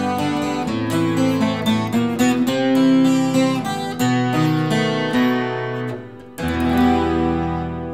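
Vangoa 12-string acoustic guitar playing a picked riff, one note after another. About six seconds in it briefly drops away, then a new chord rings out.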